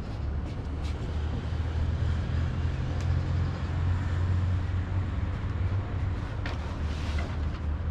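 Steady low rumble of distant city traffic, with a few faint clicks from light handling.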